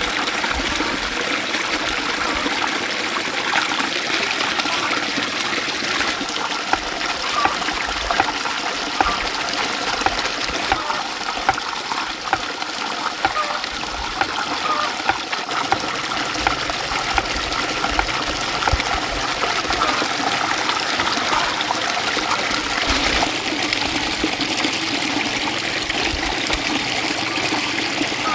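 Water running and trickling steadily, with short sharp sounds scattered over it.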